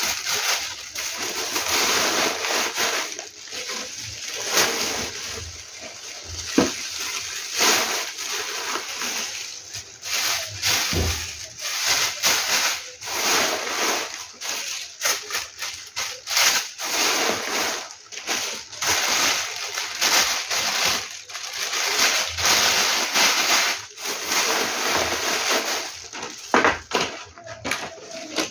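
Thin plastic snack wrappers and bags crinkling and crackling as they are handled and sorted, an irregular, continuous rustle with frequent sharp crackles.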